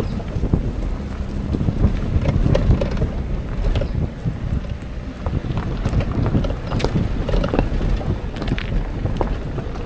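Car driving along a rough gravel dirt track: a steady low rumble of tyres rolling over loose stones, with many small clicks and knocks of gravel under the wheels, and wind buffeting a microphone outside the car.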